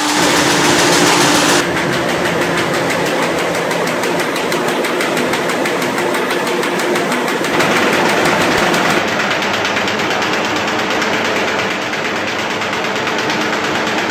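Manzoni Seriana 31 paper bag making machine running, a fast, steady mechanical clatter of many rapid regular strokes. The sound shifts abruptly in tone a few times.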